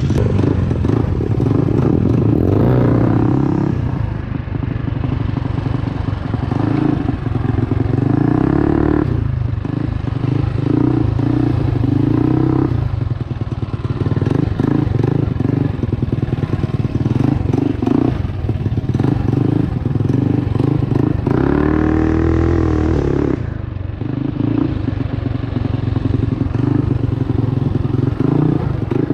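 Trailmaster MB200 mini bike's modified Predator 212cc Hemi single-cylinder four-stroke engine revving up and easing off over and over while riding a rough dirt trail, with pitch climbing on each throttle burst. Rattling and clatter from the bike over rocks and ruts run underneath.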